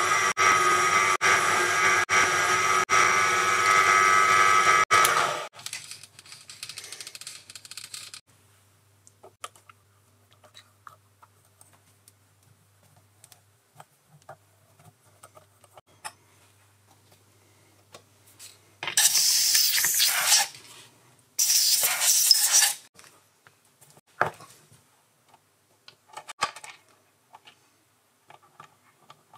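Proxxon PD 250/e mini lathe running and facing the end of a 316 stainless steel bar; the machine noise stops about five seconds in. Later come two loud hissing bursts, a second or so each, and a few small metallic clicks.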